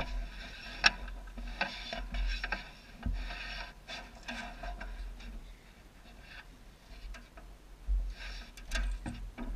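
Irregular clicks, knocks and rustling from a person moving about on a boat deck while handling a caught bass, with one sharp click just under a second in, over a low rumble.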